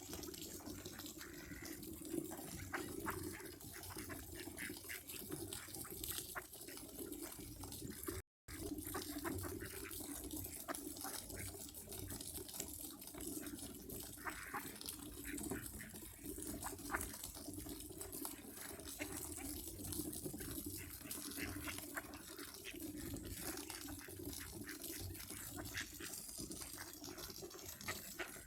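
Running water, with small splashes and drips, steady throughout. It breaks off for a moment about eight seconds in.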